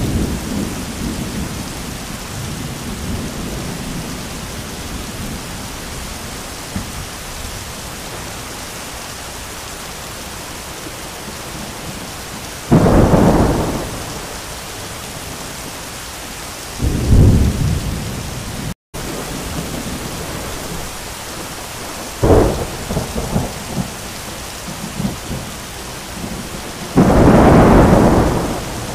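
Heavy rain pouring steadily with thunder. A rumble dies away at the start, then four sudden thunder cracks come about 13, 17, 22 and 27 seconds in, the last the loudest and longest.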